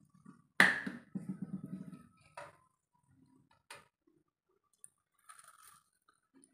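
A sharp knock about half a second in as the plastic sauce bottle is set down on the kitchen counter, then a couple of light clicks of handling a steel plate. Near the end, a faint brief crunch as a crispy cabbage pakoda is bitten.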